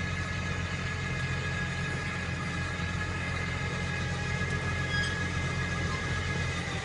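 Tractor engine running steadily as it pulls a bed-forming, plastic-mulch-laying machine along a strawberry row, a low even hum with a faint steady higher whine over it.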